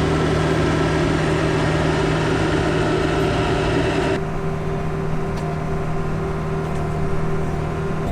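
John Deere 450H crawler dozer's diesel engine running steadily with a constant hum. A hiss layered over it cuts off suddenly about four seconds in.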